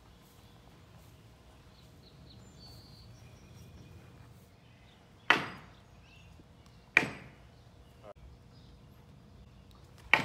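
Three sharp hits of metal throwing stars (shuriken) striking a plywood target board, each a crack with a brief ringing tail, the second coming under two seconds after the first and the third about three seconds later.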